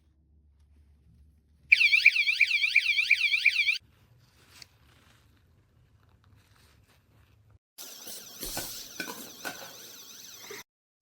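Cruxer bike alarm sounding a fast-warbling electronic siren for about two seconds, then stopping. A few seconds later comes a rougher, noisier stretch of about three seconds, with the warble faint under knocks and rattles.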